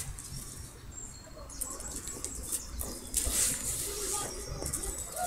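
Outdoor ambience: faint high bird chirps and distant voices over a low rumble, with a brief hiss about three seconds in.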